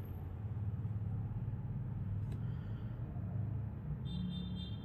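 Steady low background rumble, with a faint click about two seconds in and a faint high-pitched tone near the end.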